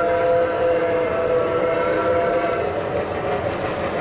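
Lionel Legacy Camelback 4-6-0 O-gauge model steam locomotive's sound system blowing a multi-tone steam whistle over its running noise. The whistle fades out about two-thirds of the way through.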